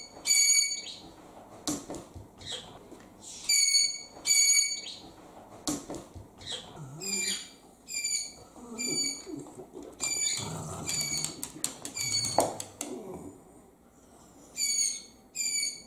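Sun conure repeatedly screeching its contact call, harsh high calls often in pairs. About halfway through the calls become quieter and duller: the bird is now shut in an acrylic soundproof case, which cuts down its calling.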